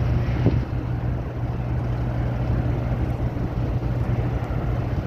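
Steady low machinery drone: a constant low hum under a wash of noise, unchanging throughout.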